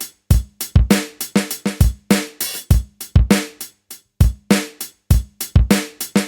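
Music: a drum kit playing a beat of separate kick, snare and cymbal hits, with short gaps of quiet between the strokes.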